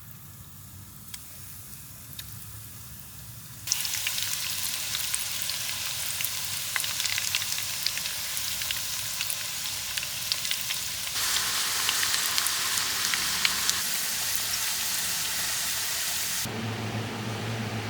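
Chips frying in hot reused oil: a dense sizzle full of small crackles that starts suddenly about four seconds in and grows louder past the middle. Near the end it gives way to a steady low hum.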